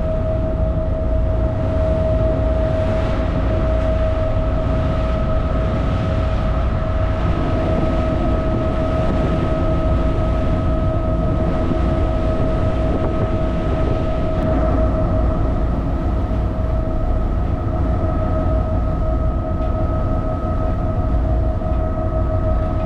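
Ferry under way: a steady low engine rumble with a constant high whine running over it.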